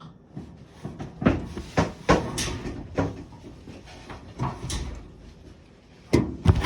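A series of irregular knocks and clunks from the Kenmore dryer being handled and set back in place, with the loudest pair near the end.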